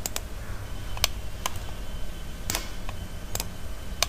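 About seven sharp computer-mouse clicks at irregular spacing, over a low steady hum.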